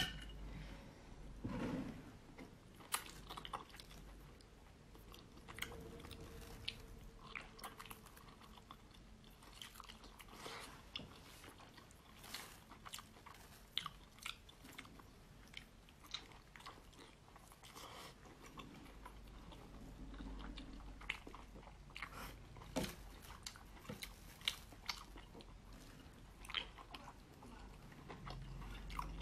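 A person eating braised octopus, chewing and biting, with many irregular sharp clicks of mouth and food sounds.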